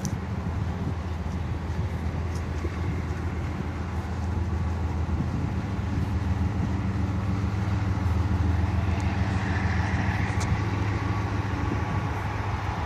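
Freight train's diesel locomotive passing, a steady low engine rumble that grows slightly louder about eight seconds in.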